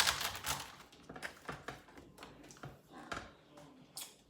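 Knife cutting celery on a cutting board: a string of light, irregular clicks and taps.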